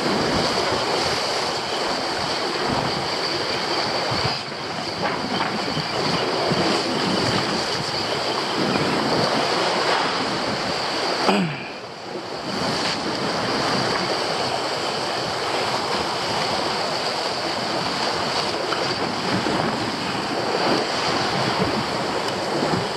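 Sea surf washing and breaking over shore rocks, with wind buffeting the microphone, as a steady rushing noise.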